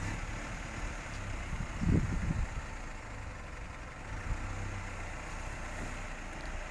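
Dual-cab 4x4 ute engine running at low revs as it crawls through a deep rut, with a brief louder surge of low rumble about two seconds in.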